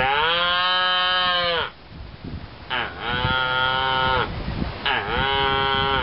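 A man imitating a cow's moo with his voice, hand cupped at his mouth: three long, drawn-out calls with short breaks between them.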